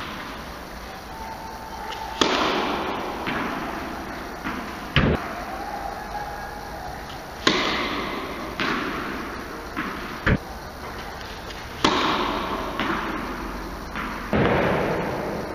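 Tennis kick serves struck in a reverberant indoor tennis hall: three sharp cracks of racket on ball about five seconds apart, each ringing out in a long echo, with a lighter tap of the ball landing across the court about a second after each. Between serves, short dull thuds of the ball being bounced on the court.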